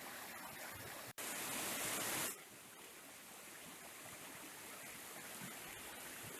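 Rushing water of a mountain waterfall and stream. It cuts out for an instant about a second in, comes back louder and hissier for about a second, then settles to a steadier, slightly quieter rush.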